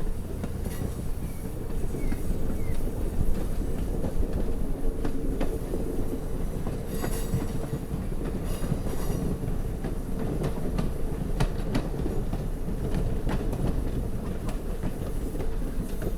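Passenger train running on rails: a steady low running noise with scattered sharp clicks of the wheels over the track and a faint held tone.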